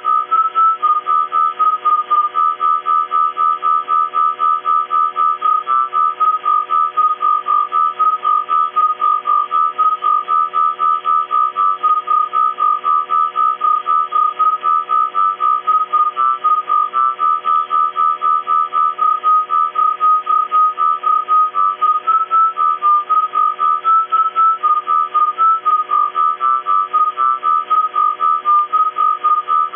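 Radio signal picked up by a ferrite rod antenna and played through an iPhone: a whistling tone that pulses about three times a second and hops between a few close pitches, over a steady buzzing hum and hiss.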